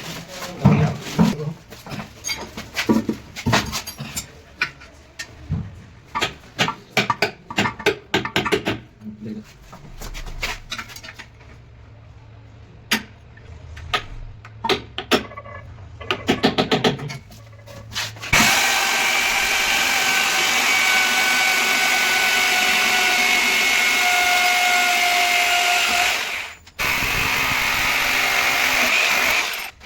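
A quick run of sharp knocks and taps, then an electric drill running steadily, stopping briefly once and starting again.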